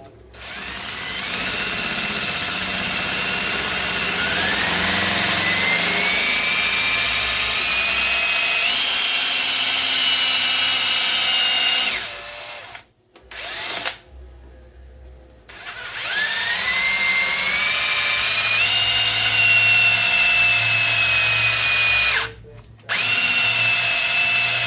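Cordless drill boring a half-inch hole into a pool ball, its motor whining and climbing in pitch as it speeds up. It stops about twelve seconds in, gives one short burst, then runs twice more with a brief pause between.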